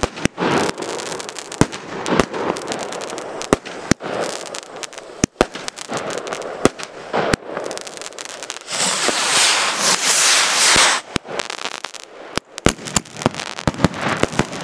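Fireworks going off: sharp pops and bangs all through, with a loud hiss lasting about two seconds near the middle, as a 3-inch ball-shell rocket's motor burns at launch.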